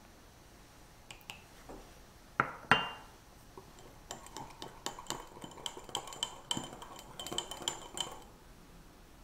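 Small wire whisk beating egg yolk and milk in a small glass bowl, its wires clinking quickly against the glass for about four seconds before stopping. Before that come two louder knocks, about two and a half seconds in.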